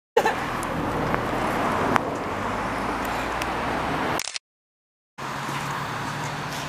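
Yamaha SR single-cylinder motorcycle engines idling steadily, with a short, sudden gap of silence about four seconds in.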